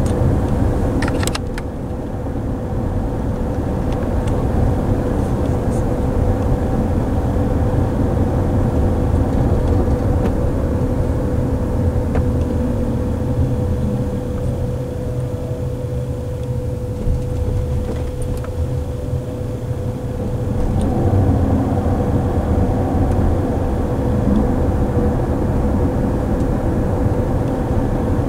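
Road and tyre noise inside a Waymo self-driving car's cabin while it drives at city speed. A faint whine dips in pitch as the car slows around the middle and rises again as it speeds back up. A couple of brief clicks come about a second in.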